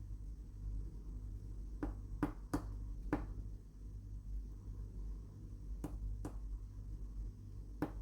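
Short, sharp clicks from hands working a lottery scratch card, about seven in all, several in quick pairs, over a low steady hum.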